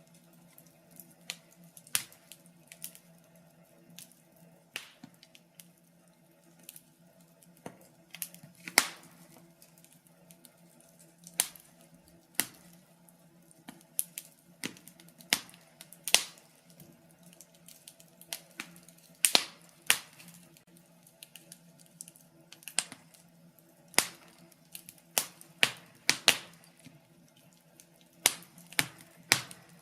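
Wood fire crackling, with irregular sharp pops and snaps, a few of them much louder, over a faint steady low hum.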